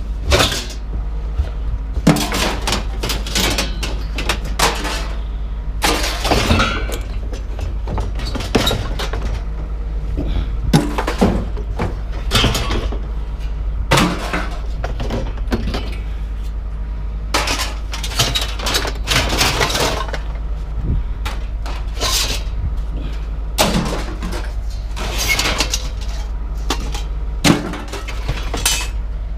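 Scrap being thrown off a load onto a pile, crashing and clattering in repeated bursts of impacts with ringing, over a steady low rumble.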